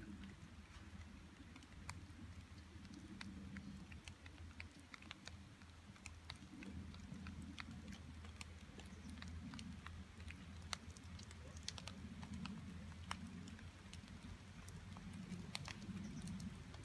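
Faint outdoor ambience: a steady low rumble of wind on the microphone, with scattered light clicks and crackles a few times a second.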